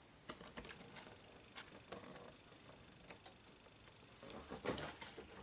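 Faint, scattered clicks and light knocks of a cardboard display box being handled, with a short stretch of cardboard rustling near the end as it is lifted away.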